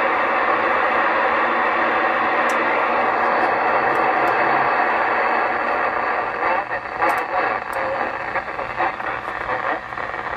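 FM static hissing from a Kenwood 2-metre all-mode transceiver's speaker, tuned to 145.790 MHz to receive the International Space Station's voice downlink. The hiss is steady at first. About six seconds in it breaks up and flutters unevenly, as a weak signal fades in and out.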